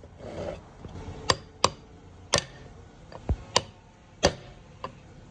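Hammer tapping on metal parts during differential pinion seal work: about seven sharp, separate knocks at irregular intervals.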